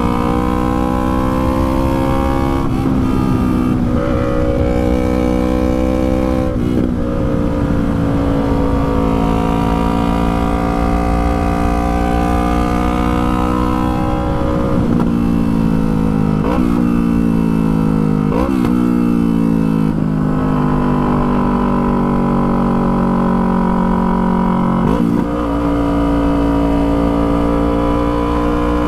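Yamaha R3's 321 cc parallel-twin engine running on the move, its note sagging and rising with the throttle. Several quick sharp rev spikes come with gear changes, a cluster of them about halfway through.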